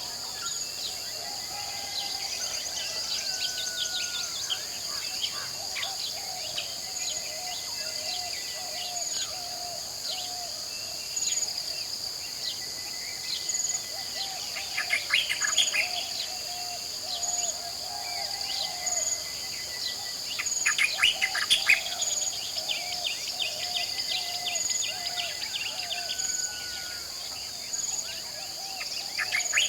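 Tropical jungle dawn chorus: many birds calling and singing over a steady high-pitched insect drone, with a short insect pulse repeating about every two seconds. The loudest moments are quick bursts of rapid bird calls about halfway through and again about two-thirds of the way in.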